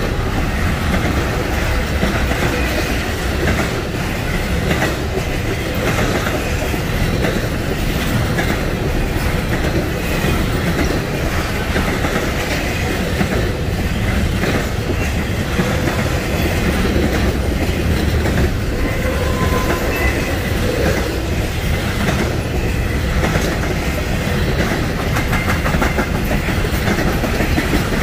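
Norfolk Southern freight train cars rolling past in a long steady rumble, with the clickety-clack of wheels over the rail joints and faint thin squeals from the wheels now and then.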